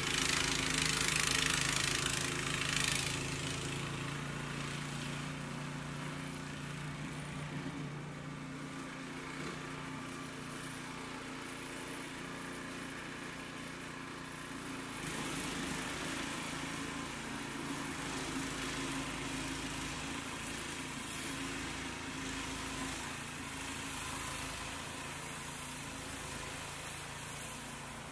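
Gas snow blower engine running steadily. A rushing noise rides over it in the first few seconds and again from about halfway, while the machine is throwing snow.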